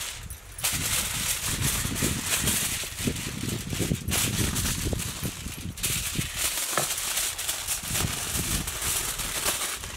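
Aluminium foil crinkling and crackling as hands fold and press it around a parcel. It goes in stretches, starting about half a second in, with a short break near four seconds and a longer pause around six seconds.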